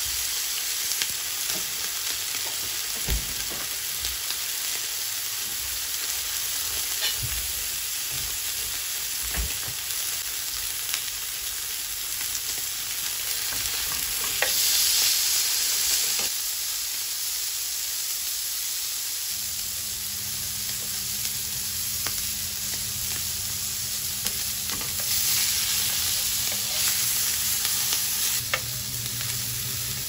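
Steaks sizzling as they sear in a hot nonstick frying pan, with a steady hiss. The sizzle swells briefly about halfway through and again near the end as the steaks are turned, and metal tongs click lightly against the pan. A low steady hum comes in about two-thirds of the way through.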